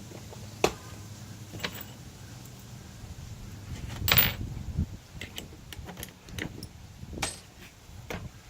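Tools and screw hardware being handled: scattered light clicks and knocks, with one louder brief scrape about four seconds in.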